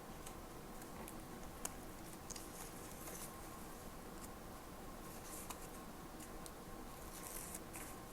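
Quiet handling of paper and stationery: scattered soft clicks and brief papery rustles over a faint steady hum.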